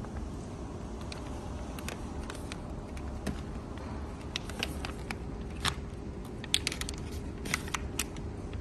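Steady low hum of a pouch filling machine, with scattered sharp clicks and crinkles as filled plastic spout pouches are gripped and pulled from the machine.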